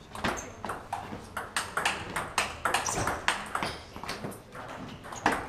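Table tennis rally: the ball clicking off the bats and the table many times in quick succession.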